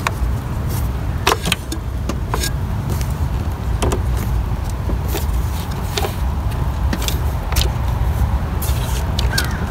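Scattered small clicks and taps as hands work a rubber timing belt onto the engine's toothed sprockets, over a steady low rumble.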